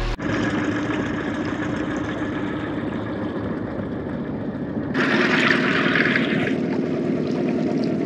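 Boat engine running steadily while under way, with a louder hissing rush about five seconds in that lasts a second or so.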